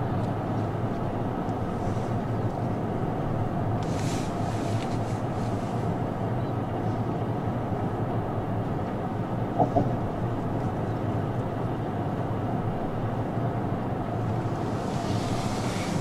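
Steady road and engine noise heard from inside the cabin of a car driving at speed. Two short, sharp sounds come close together near the middle.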